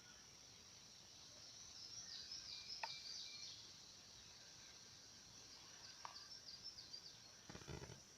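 Faint outdoor quiet dominated by a steady high-pitched insect drone, with a few quick high chirps twice and a brief rustle near the end.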